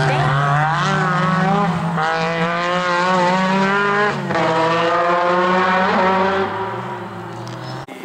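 Lancia Stratos rally car's V6 engine revving hard and accelerating out of a bend, its pitch climbing. About four seconds in, a second rally car takes over, its engine also climbing in pitch under hard acceleration and then fading as it pulls away.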